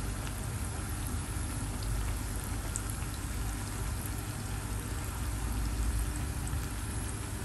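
Akara (bean-batter fritters) deep-frying in a pan of hot oil: a steady sizzling and bubbling with a few small crackles.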